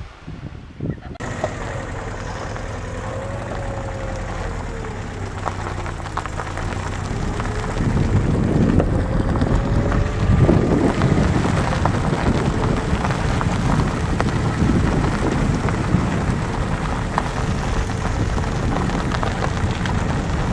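Wind buffeting the microphone over a steady low rumble, growing louder and gustier partway through, with a faint whine that drifts slightly in pitch.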